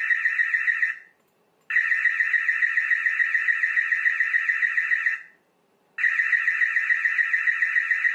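Built-in siren of a Dahua TiOC DH-HDW3549-AS-PV camera sounding, set off by its video motion detection: a loud, high, rapidly warbling tone. It comes in bursts of a few seconds broken by short gaps, with one burst ending about a second in and others starting near two and six seconds in.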